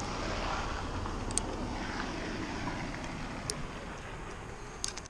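Zip-line pulley trolley running along a steel cable, a steady rolling whir with a few sharp metal clicks. It drops off suddenly after a sharp click near the end.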